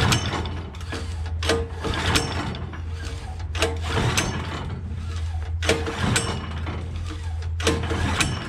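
Predator 420cc single-cylinder engine being cranked in about four short attempts, two seconds or so apart, without catching; the choke is set the wrong way, as the owner suspects right after.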